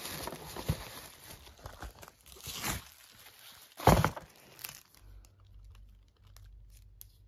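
Tissue paper and plastic packaging rustling and crinkling as items are lifted out of a cardboard shipping box, with one sharp knock about four seconds in; the handling grows quieter near the end.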